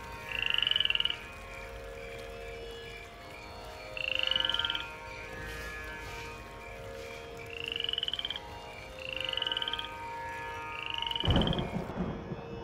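Frog calling: five short, rising trilled croaks a few seconds apart, over a faint steady drone. The last call comes with a burst of low noise.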